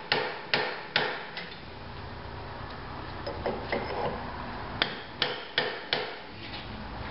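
Hammer tapping a cold chisel to shear the soft rivets holding the starter ring gear onto a Briggs & Stratton lawnmower flywheel. There are four quick strikes, then a pause with a few light taps, then another run of about five strikes near the end.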